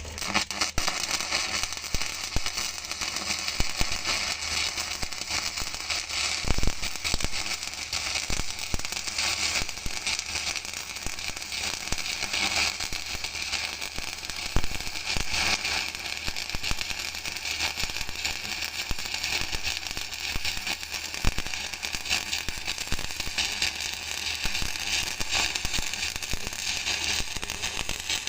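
Electric arc welding on a vertical weld: the arc crackles and sizzles steadily, with an occasional sharper pop.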